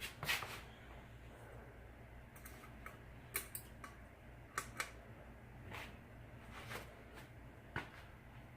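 A first-generation Hampton Bay Southwind ceiling fan motor running with a steady low hum. Irregular short clicks and brief rustles come and go over it.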